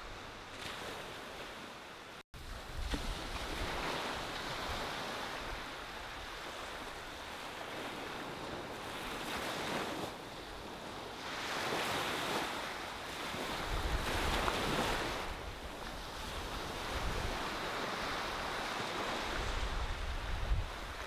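Ocean waves breaking and washing up on a sandy beach, the surf swelling and fading every few seconds, with gusts of wind rumbling on the microphone. There is a short dropout in the sound about two seconds in.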